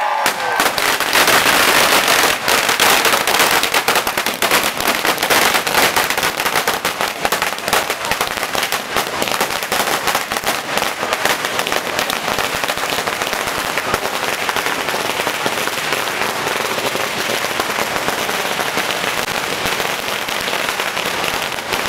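Firecrackers going off in a dense, continuous rapid crackle, loudest in the first few seconds and then steady.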